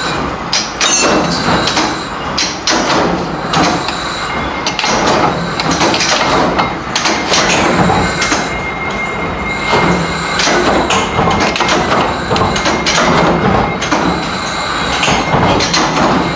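Continuous workshop machinery clatter, dense and irregular, with many sharp metallic knocks over a steady high-pitched tone.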